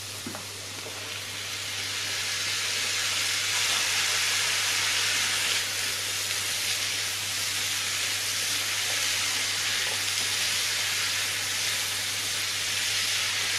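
Chanterelle mushrooms sizzling as they go into hot butter and oil with sliced leek in a frying pan, stirred with a silicone spatula. The sizzle builds over the first few seconds as the mushrooms hit the fat, then holds steady.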